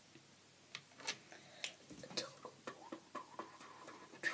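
Plastic felt-tip pens clicking and tapping against each other and the table as they are sorted and one is picked out, a scatter of light clicks with a louder one near the end.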